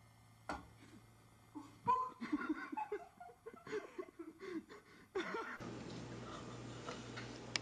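A person laughing in a run of short bursts from about two seconds in to about five seconds in, after a single sharp click near the start.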